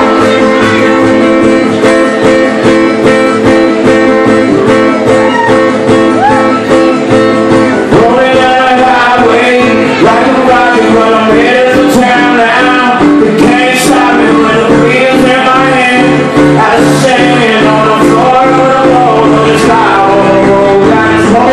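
Live solo song: a man singing over his own acoustic guitar, loud and full in the room.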